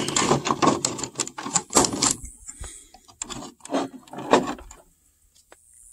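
Handling noise: a series of irregular clicks and rustles as a hard plastic RC car body shell is lifted and turned by hand, fading out about five seconds in.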